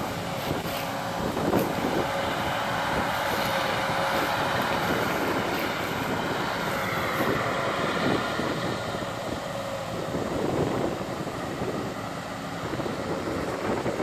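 John Deere 9550 combine running steadily while harvesting soybeans: a continuous drone of its diesel engine and threshing machinery with a faint steady whine.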